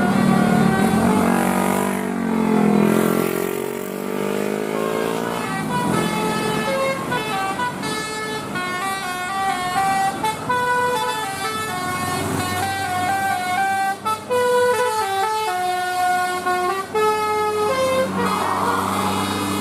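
Basuri telolet horn, the multi-tone musical air horn fitted to Indonesian buses and trucks, playing a tune of quick stepped notes. It starts with a gliding sweep about two seconds in, over a steady low engine hum.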